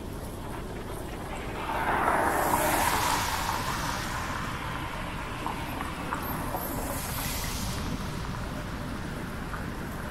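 A car passing on a wet road: its tyre hiss swells about two seconds in and fades away, and a fainter high hiss comes and goes around seven seconds in, over a steady low rumble of wind on the microphone.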